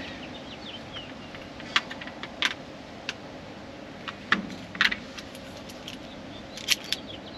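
Brass refrigerant hose fittings and a digital refrigerant manifold being handled: about seven sharp, scattered metallic clicks and clinks.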